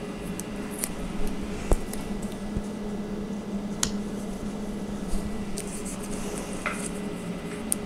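Peeling small adhesive screw-cover stickers off their backing strip and pressing them onto the storage unit's panels: faint scattered crinkles and ticks, with a light knock about two seconds in. A steady low hum runs underneath.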